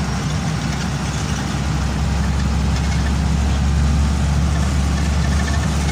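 Intercity bus on the move: steady low engine drone with road noise, growing a little louder about two seconds in.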